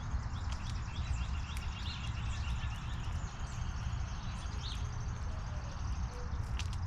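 Outdoor bird-feeder ambience: a steady low rumble with small birds chirping, including a quick run of high chirps in the first half, and a few sharp clicks.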